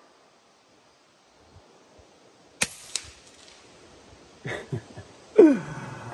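A single shot from an FX Impact M3 PCP air rifle fitted with the FX harmonic barrel tuning shroud: one sharp crack about two and a half seconds in, then a fainter click. A short sound falling in pitch near the end.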